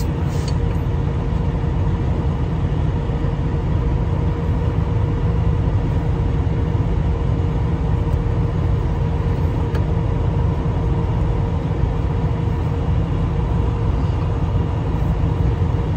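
Steady low rumble of running machinery with a faint steady hum.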